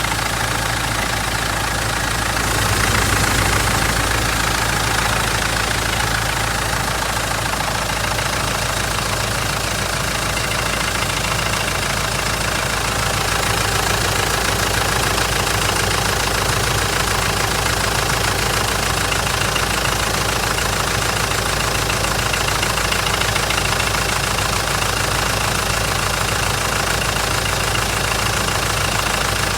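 Mitsubishi 4M41 four-cylinder turbodiesel idling after a cold start with a steady knocking, briefly a little louder about three seconds in. The owner does not know the cause of the knock.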